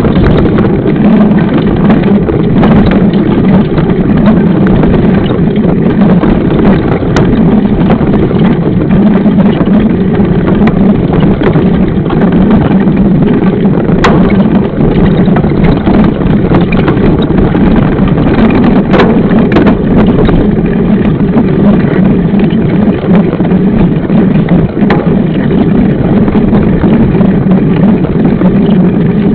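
Loud, steady rumble of wind and rolling noise on the microphone of a camera riding along on a mountain bike, with a few sharp clicks and knocks as the bike jolts over the trail.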